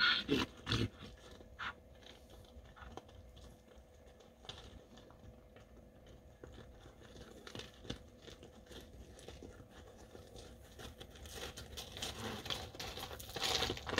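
Faint, scattered crunches and clicks of steps on stony gravel over an otherwise quiet background, growing a little louder near the end.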